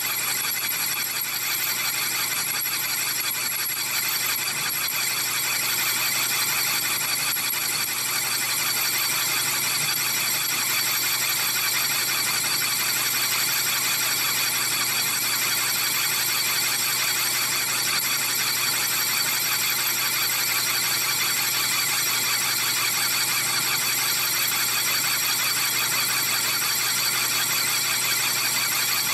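Metal lathe turning a large steel clutch hub with the cutting tool working its face, giving a steady high-pitched whine over the hum of the machine.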